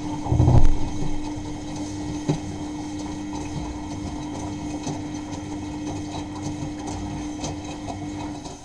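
Miele Novotronic W923 washing machine running, with a steady hum, a heavy low thump about half a second in, and the hum cutting off near the end.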